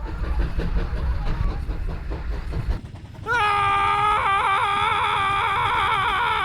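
Low rumble of an approaching cartoon train for about the first three seconds. Then a long, held scream from a cartoon character, wavering in pitch midway, which carries on past the end.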